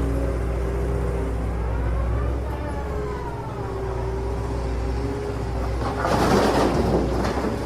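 Small motor running steadily with its pitch rising and falling, then a burst of rushing noise about six seconds in that lasts about a second and a half.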